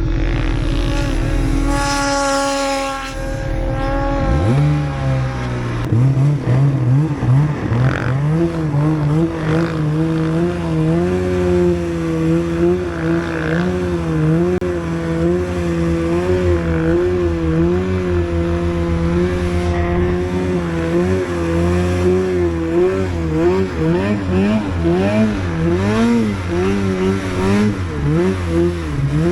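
Two-stroke snowmobile engine revving up hard about four seconds in, then running under throttle with its engine speed rising and falling repeatedly.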